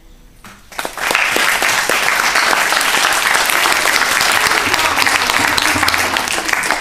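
Audience applauding, starting about a second in as the last notes of an acoustic guitar song die away.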